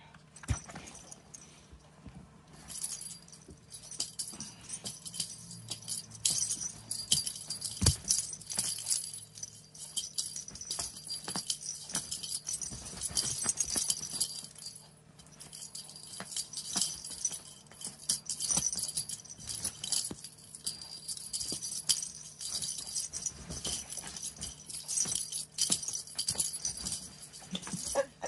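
Small bells jingling in quick, irregular shakes as cats play, with a brief pause about halfway through and a few sharp taps among them.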